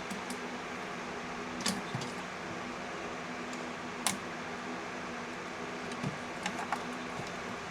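About half a dozen short, sharp clicks and knocks of hands and tools unhooking sensor connectors and hoses on a Jeep Pentastar V6, over a steady mechanical hum.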